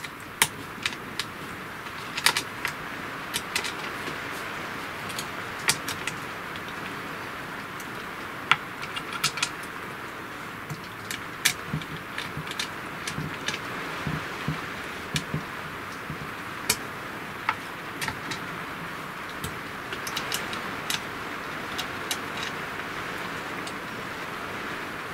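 Scattered small metallic clicks and clinks at irregular moments as little bolts and nuts are handled and fitted through an MDF spoilboard into the aluminium bed of a CNC router, over a steady hiss.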